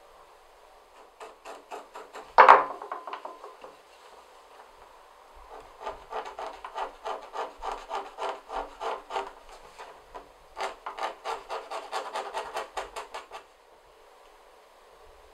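A hand tool rubbed quickly back and forth along the edge of a leather panel lying on a wooden table, in rhythmic bouts of about four strokes a second, with a sharp knock on the table about two and a half seconds in, the loudest sound.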